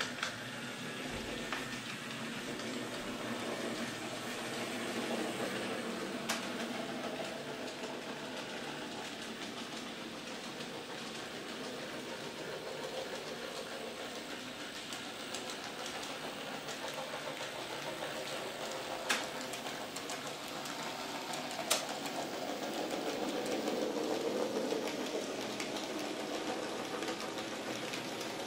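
Electric model trains running on the layout: a steady hum and rattle of small locomotives and coaches rolling over track and points, with a few sharp clicks. It grows louder about three-quarters of the way through.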